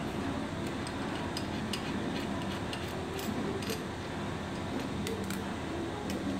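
Scattered light metallic clicks and taps from a hex key and steel bolts and nuts against a stainless-steel machine top as flange bolts are undone, over a steady low hum.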